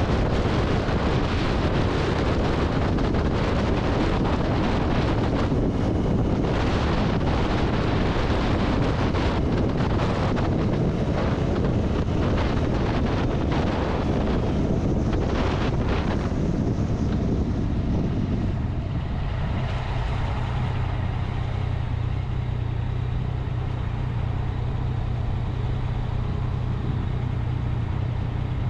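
Wind rushing over the microphone while riding a 2021 Yamaha XSR900 motorcycle. About two-thirds of the way through, the wind noise drops away and the bike's inline-three engine settles into a steady idle.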